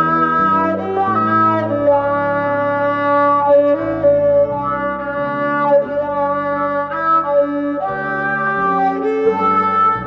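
Music: a violin playing an Irish-style melody over held low backing chords.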